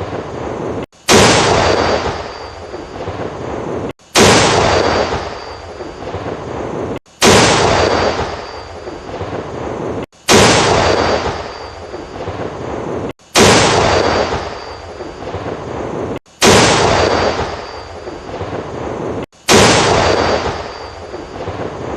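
Tank main gun firing, the same shot repeated seven times about every three seconds, each a sudden loud blast with a long fading rumble, cut off abruptly just before the next.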